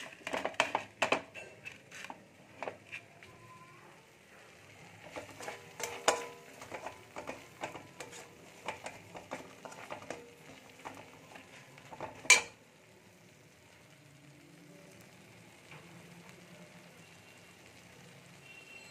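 A flat spatula scraping and knocking against a kadai as a thick spice-paste stuffing is stir-fried down, with a light sizzle under the clatter. The loudest is one sharp knock about twelve seconds in; after it only a faint sizzle is left.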